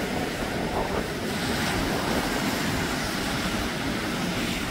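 Ocean surf breaking and washing against a rocky shoreline as a steady rush, with wind buffeting the microphone in a low rumble.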